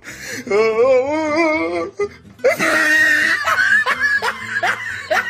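Exaggerated comic laughter: a long wavering laugh with a shaking pitch, a brief noisy burst, then a string of short rising 'ha' sounds about twice a second.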